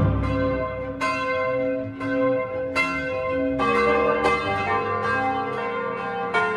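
Church bells ringing, a peal of several bells striking one after another about every second or less, each note ringing on under the next, as a funeral toll.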